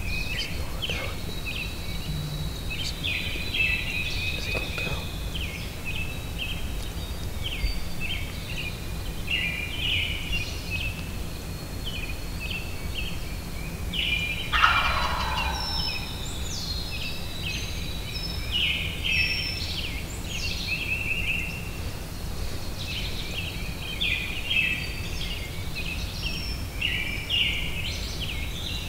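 A wild turkey gobbler gobbles once, loudly, about halfway through. Many songbirds are singing and chirping around it.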